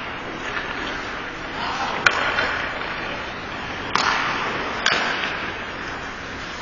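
Ice hockey play: a steady hiss of skates on the ice, with three sharp cracks of stick and puck about two, four and five seconds in.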